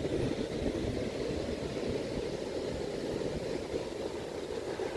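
Steady low rushing noise of surf and wind at the shoreline, with a rumble of wind on the microphone.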